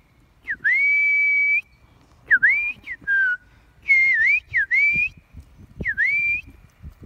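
A person whistling to call a dog back: a run of about seven whistles, each dipping and then rising to a held high note, the first one the longest.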